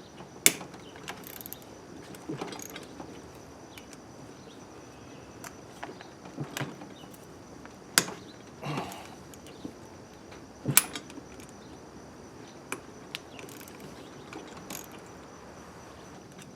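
Hand tools working the bolts on a Honda XR80R engine's cylinder head: scattered sharp metal clicks and clinks with ratchet clicking, irregular and spread out, the loudest about half a second, eight and eleven seconds in.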